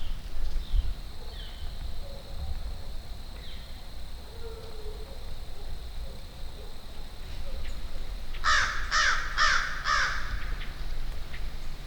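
A crow cawing four times in quick succession, about eight and a half seconds in, with faint chirps of smaller birds before it.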